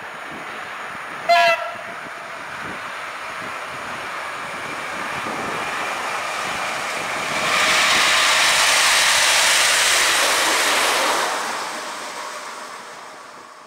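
PKP Intercity EP07P electric locomotive running light: one short horn blast about a second in, the Rp1 'attention' warning signal, then the lone locomotive approaches and passes, its wheels on the rails growing louder to a peak about eight seconds in and fading away near the end.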